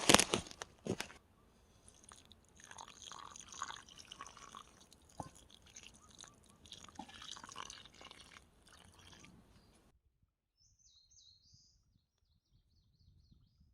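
Water dripping and splashing, with a few sharp knocks at the start; it cuts off suddenly about ten seconds in, leaving a small bird's short high chirps and a quick trill.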